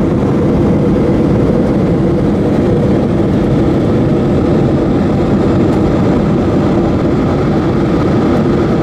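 Boeing 737-800 cabin noise in flight: a steady, even drone of the jet engines and rushing airflow, with a faint hum.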